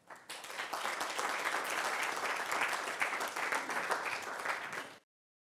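Audience applauding; the clapping builds over the first second, holds steady, and cuts off abruptly about five seconds in.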